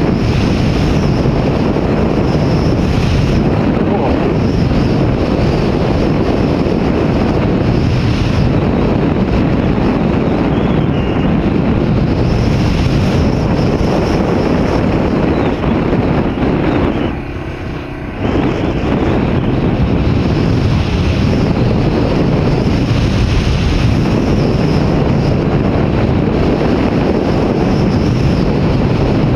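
Steady wind rushing and buffeting over the microphone of a camera riding along a road, easing off briefly for about a second a little past halfway.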